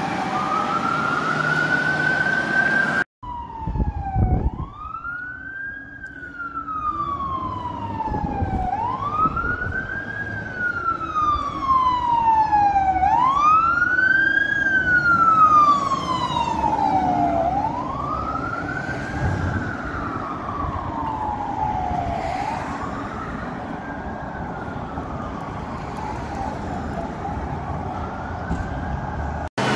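Aerial fire truck's siren wailing, each cycle rising quickly and then sliding down slowly over about four seconds. It breaks off briefly about three seconds in, is loudest near the middle and grows fainter toward the end.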